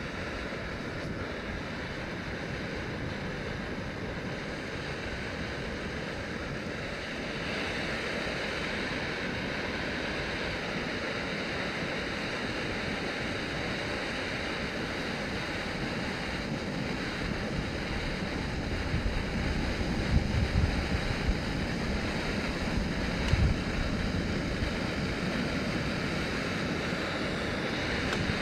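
Steady roaring hiss of an MSR Pocket Rocket 2 canister stove burning under a titanium pot of water heating toward a boil; the hiss grows a little louder about seven seconds in. In the second half, wind buffets the microphone in gusts.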